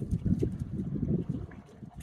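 Playing puppies growling: low, rough grumbling for about a second and a half, then dying away.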